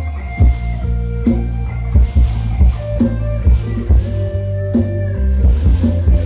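Instrumental band music: an electric guitar melody over heavy bass and a drum beat, the lead-in to an Isan-language luk thung song.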